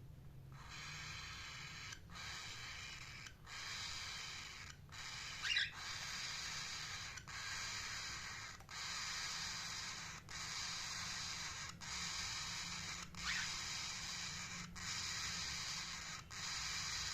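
Indian ringneck parrot giving two short rising chirps, about five seconds apart, over a steady hiss that comes in even pulses about a second and a half long.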